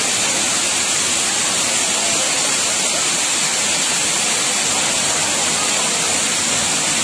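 Waterfall rushing steadily, a loud even roar of falling water, its flow swollen by several days of rain.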